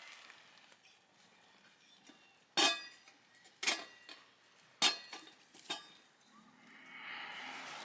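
Metal camp cookware being handled: four sharp knocks with a short metallic ring about a second apart, then a steady hiss that builds from about six and a half seconds in.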